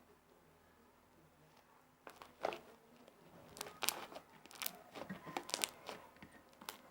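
Fluffy slime, made with shaving foam, being squeezed and stretched by hand, giving irregular crackling and popping clicks that start about two seconds in.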